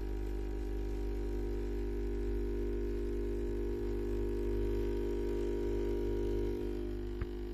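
Pump of an AEG EA150 espresso machine (dimmer-modded) running with a steady buzzing hum as it pushes water into the coffee puck during a bloomed, slowed extraction, before any coffee drips. The hum eases slightly near the end, with a small tick just after.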